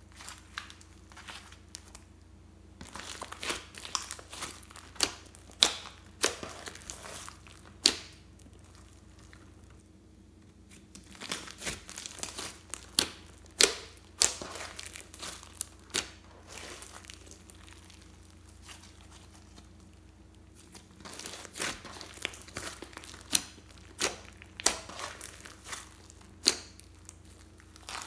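Thick slime being squeezed, pressed flat and stretched by hand: sticky crackling with sharp pops as air pockets in it burst, coming in three spells with quieter pauses between.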